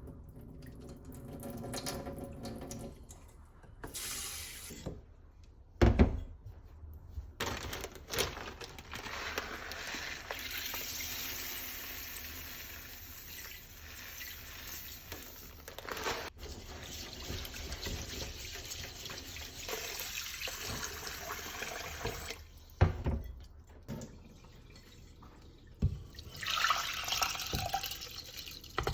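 Kitchen tap running into a sink for about fifteen seconds, with a few sharp knocks before it starts and after it stops.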